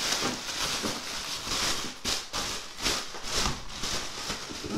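Rustling and crinkling of packing wrap as hands dig through a shipping box, coming in several short swells.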